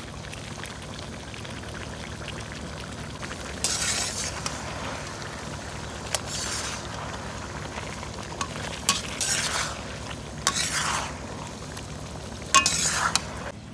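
Chicken and tomato masala sizzling in a steel karahi wok as a metal spatula stirs and scrapes through it, with ginger-garlic paste just added to the hot oil. Five louder surges of sizzling come every second or two, with a few light clinks of the spatula on the pan.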